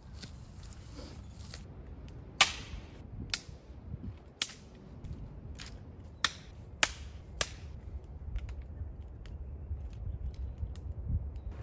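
Dry wood cracking: about six sharp, loud snaps spread over five seconds, with a few fainter clicks after them. A soft hiss comes in the first second and a half.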